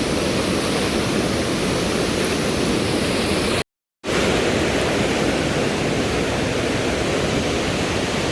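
Mountain river rushing: a steady wash of fast-flowing water, broken by a sudden silence of about a third of a second a little before halfway through.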